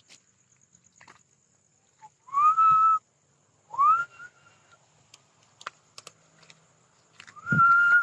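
Three loud whistled notes, each swooping up and then holding steady, the first two short and the last a little longer, with a few faint clicks between them.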